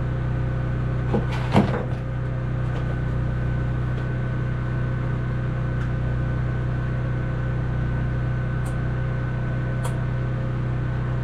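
A steady machine hum with several held tones, and a couple of sharp clicks or knocks about a second and a half in.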